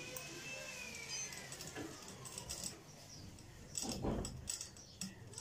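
Fabric being handled and positioned at a stopped sewing machine, with a few clicks and rustles about four seconds in. Over the first two seconds a faint drawn-out tone rises and then falls.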